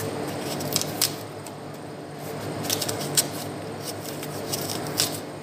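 A small knife paring the skin off a green apple held in the hand: a few light, irregular scraping clicks of the blade through the peel, over a faint steady hum.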